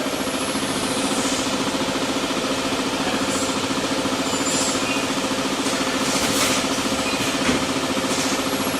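Automatic powder-packing machine running: a steady mechanical hum with a fast, even pulsing rhythm and a few brief hisses.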